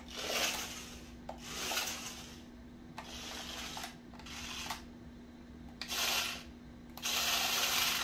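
Sharper Image X-Treme Roll remote-control stunt car driven in short bursts across a laminate floor: its small electric drive motors whir and its wheels scrub the floor, about six bursts of half a second to a second each, the longest and loudest near the end. A steady low hum runs underneath.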